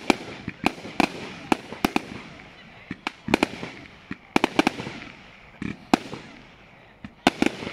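Fireworks going off: about a dozen sharp bangs from shells bursting overhead, at uneven intervals, some in quick pairs and clusters, with crackling between the reports.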